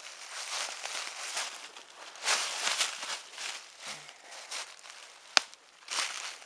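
Footsteps crunching and rustling through dry fallen leaves in uneven bursts, with one sharp snap about five seconds in.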